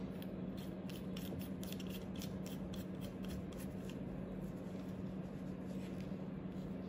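Brass compression fitting parts being handled and screwed together by gloved fingers: faint metallic clicks and rubbing, thickest in the first half, over a steady low hum.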